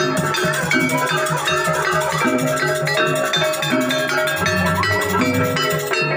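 Live Banyuwangi jaranan gamelan ensemble playing. Bronze metallophones strike a running pattern of ringing notes over hand-played kendang drums.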